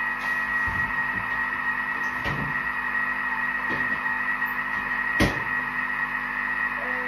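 Thermomix motor running steadily while mixing at speed 3, a constant whirring hum with a steady whine. A few light clicks and one sharp knock about five seconds in.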